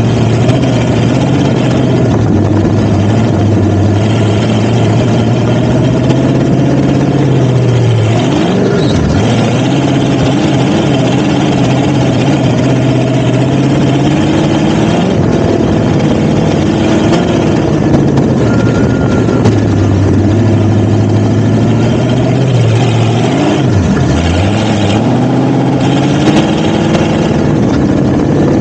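Off-road vehicle engine running while driving over sand dunes, its pitch rising and falling with the throttle. The pitch drops sharply and climbs again twice, about a third of the way in and again later on.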